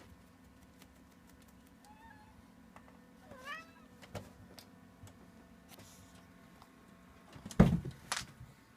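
Domestic cat meowing to beg for a treat: a faint short meow about two seconds in and a clearer one a moment later. Near the end come two sharp knocks, the first the loudest sound.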